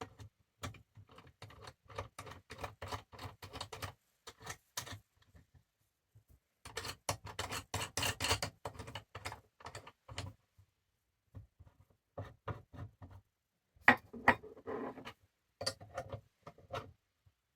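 Runs of small, sharp metallic clicks and ticks from a sight pusher and wrench being worked, nudging a rear night sight across the pistol slide's dovetail to centre it. The clicks come in bursts with short pauses between.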